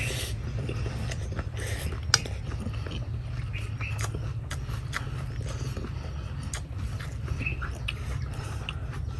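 A person slurping and chewing rice noodles from a bowl of noodle soup, with sharp clicks of chopsticks against the ceramic bowl, the loudest about two seconds in. A steady low hum runs underneath.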